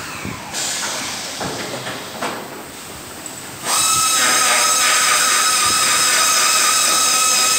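Light clicks and knocks of hardware being handled, then about halfway a loud steady machine whine with a hiss starts suddenly and holds.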